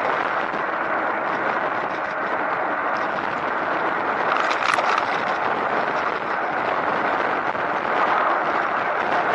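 Steady rushing wind and road noise on the microphone while riding a recumbent bike, with a brief louder crackle about halfway through.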